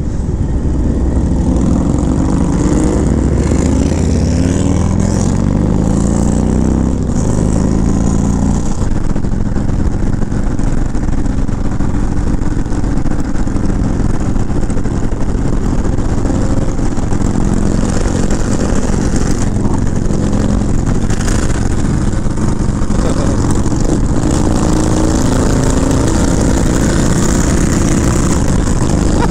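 Harley-Davidson touring motorcycle's V-twin engine accelerating up through the gears, its pitch climbing and dropping back at each shift over the first eight seconds or so, then running steadily at highway speed under heavy wind rush on the microphone.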